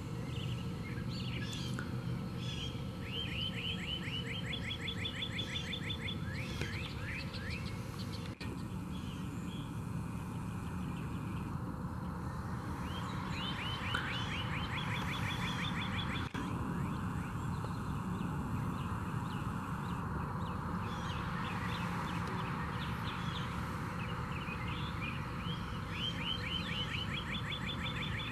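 A songbird singing outdoors, repeating a rapid trill of short, high notes three times, about ten seconds apart, with a few scattered chirps in between, over a steady low background noise.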